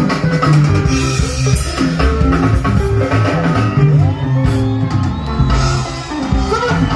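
Live sungura band playing an instrumental passage: interlocking electric guitars and bass over a drum kit, at a steady beat.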